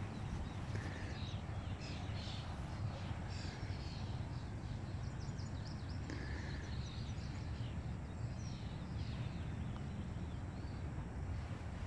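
Scattered bird chirps over a steady low outdoor rumble.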